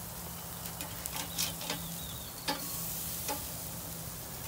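Ribeye steaks sizzling on a wire grill grate over a charcoal and wood fire, with a few sharp clicks scattered through.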